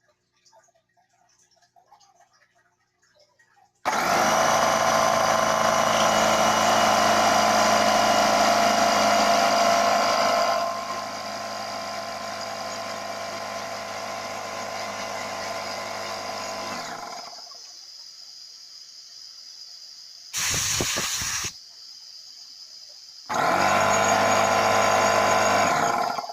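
Old small electric air compressor starting about four seconds in and running with a steady hum as it pumps up to 20 psi. It gets quieter partway and cuts out around seventeen seconds. A short noisy burst follows a few seconds later, then the compressor runs again for about three seconds before stopping.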